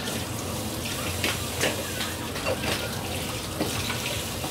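A water tap running steadily into a sink, with a few short clinks now and then.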